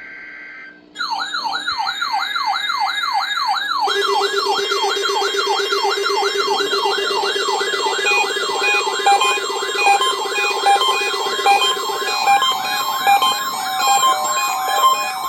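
A NOAA Weather Radio SAME data burst ends, and about a second in weather alert receivers set off by the weekly test start sounding their alarms. The first is a fast warble that sweeps up and down about three times a second. About four seconds in, a second alarm joins with a low buzz. Near the end, a steady tone and short stepped beeps come through.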